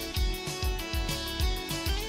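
Background music with a quick, steady low beat under sustained instrumental tones.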